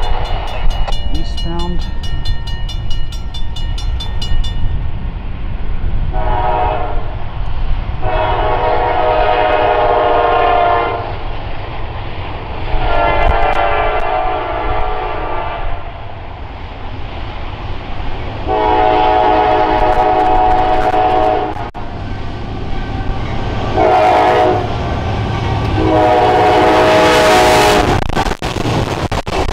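Diesel freight locomotive's air horn sounding six separate blasts, the last two a short and a long: the grade-crossing signal for the crossing it is approaching. Under it runs the steady rumble of the locomotive's diesel engine and the train's wheels on the rails, growing loud near the end as the locomotive passes close.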